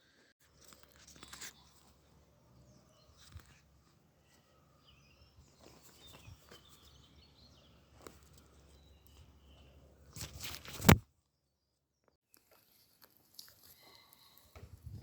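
A bird of prey tearing and crunching at meat: scattered small crunches and rustles, with one loud sudden noise near the end of the feeding clip, which then cuts off into a moment of silence before more crunching and rustling.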